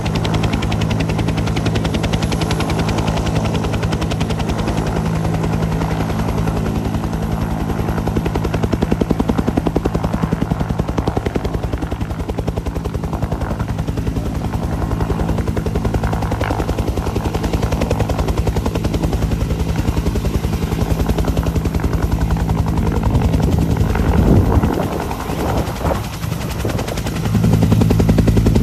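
Bell UH-1D Iroquois helicopter running: the two-bladed main rotor beats in a fast, even chop over a steady low drone. The sound dips and wavers about 24 seconds in, then comes back louder near the end.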